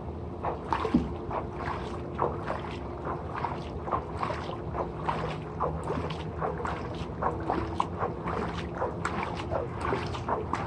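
Water splashing and sloshing in irregular small bursts, with light knocks, as a plastic acid jug is rinsed out.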